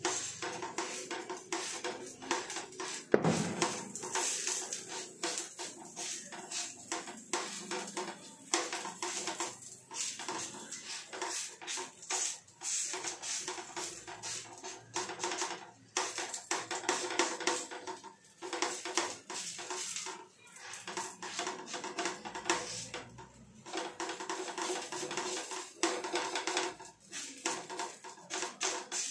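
Background music with percussion.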